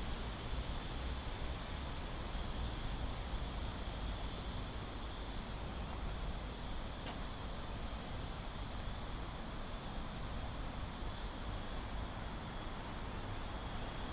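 Cicadas singing as a steady high buzz. Through the middle, a run of about seven rhythmic pulses sits on top of it. Beneath it is a steady low background rumble.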